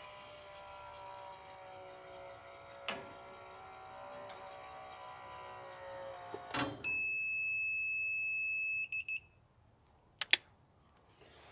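Agrimatic automatic chicken-coop door's electric motor lowering the galvanized steel door with a steady whine that drifts slightly lower, stopping with a short knock as the door shuts. The door unit then gives a steady high beep for about two seconds, followed by a couple of small clicks near the end.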